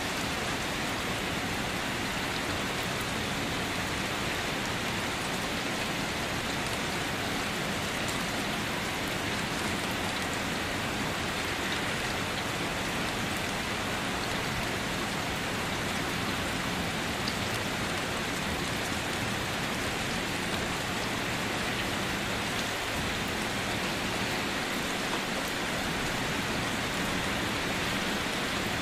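Steady rain, an even hiss of many small drops that does not change.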